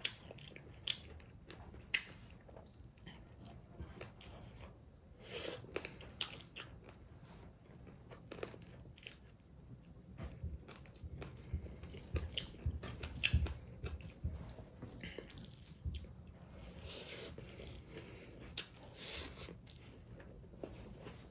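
Close-miked mukbang eating sounds: a person biting and chewing food with mouth noises, irregular crunches and wet clicks, the crunchier bites clustering around twelve to fourteen seconds in.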